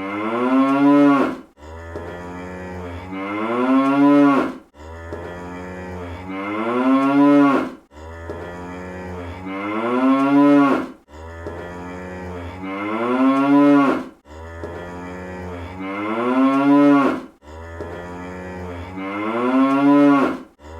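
Cartoon cow moo sound effect repeating in a loop, about once every three seconds. Each moo starts as a low, steady drone and swells into a louder call that rises and then falls in pitch.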